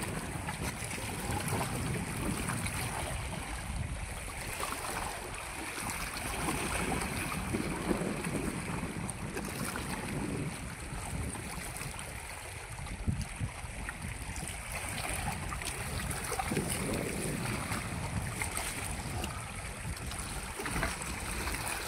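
Wind rumbling on the microphone over small waves lapping against a rocky lakeshore, a steady noise with no clear pitch.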